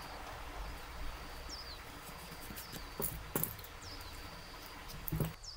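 Small scissors snipping yarn: a couple of sharp snips about three seconds in and another near the end. Behind them a steady high tone and a few short falling chirps.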